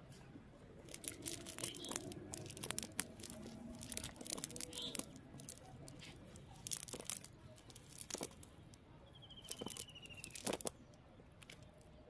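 Irregular crackling and rustling of a wet nylon cast net as hands pull the mesh apart and pick through it. A brief high falling trill sounds about nine seconds in.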